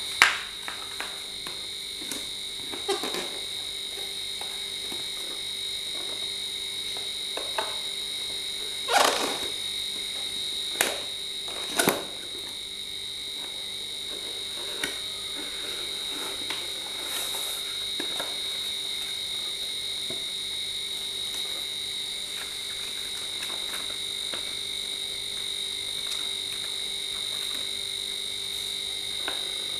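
Cardboard packaging and paper being handled: scattered rustles and a few sharp knocks. The loudest come right at the start and again between about nine and twelve seconds in. Underneath runs a steady high-pitched whine that does not change.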